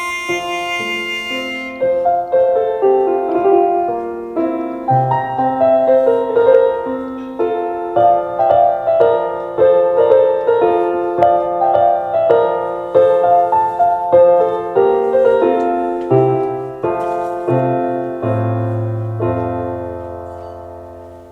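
A held harmonica note ends about two seconds in, then a piano or keyboard accompaniment plays on alone, a melody of struck, decaying notes over bass notes, ending on a final chord that fades out.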